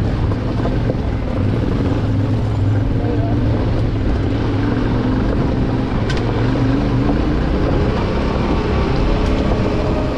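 Yamaha Ténéré 700's parallel-twin engine running at low revs while riding off-road, its note drifting slightly up and down, with one sharp click about six seconds in.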